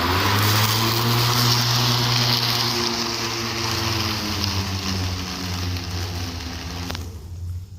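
Hart 20V 16-inch cordless lawn mower running at full speed: a steady electric whine with a loud rush of air from the spinning blade. It shuts off about seven seconds in.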